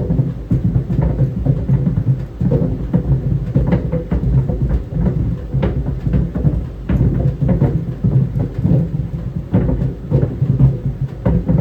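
Tennis balls tumbling in a running clothes dryer: frequent, irregular dull thumps against the drum over its steady low rumble.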